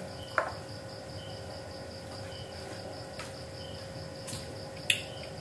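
Steady, evenly pulsed high-pitched chirping of an insect, over a faint steady hum. A few short clicks from eating at the table break in, the loudest near the end.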